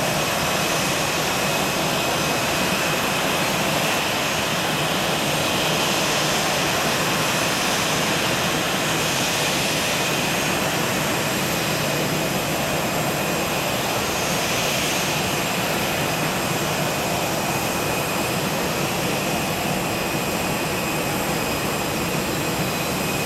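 Boeing 737 turbine noise on the ramp: a steady rushing hiss with a thin high whine held at one pitch, no rise or fall.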